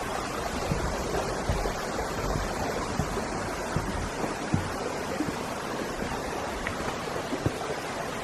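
Steady rushing of a cascading river, with a few brief soft thumps.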